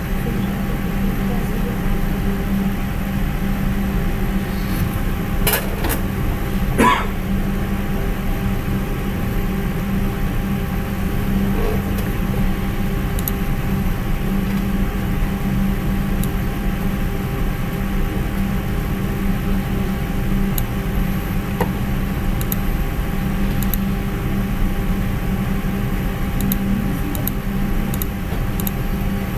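Steady low electrical hum and background noise, with two short clicks about five and a half and seven seconds in and a few faint ticks near the end.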